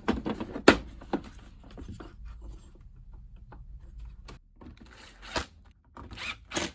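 Washing machine door hinge parts being handled and pushed back together: a few sharp clicks and knocks, the loudest about a second in, then short scraping and rustling near the end. The hinge bushings now have heat-shrink sleeves on them to take up the looseness that made the door sag.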